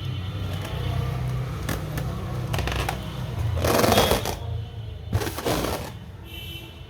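Balloons and their plastic packaging being handled, rubbing and rustling with scattered clicks, and two louder noisy bursts, each under a second long, about four and five seconds in.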